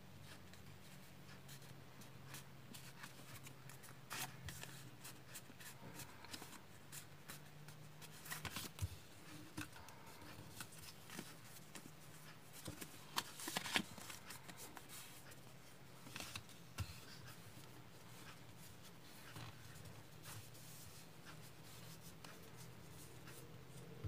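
A 14 cm square of origami paper being handled and folded by hand: faint rustling and crinkling with scattered small creasing clicks, loudest in a short cluster a little past the middle, over a steady low hum.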